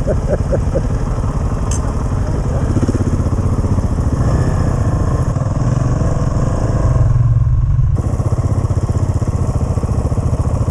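Single-cylinder dual-sport motorcycle engine running steadily under way, picked up by a bike- or helmet-mounted camera. It grows louder for about a second around seven seconds in, then eases back.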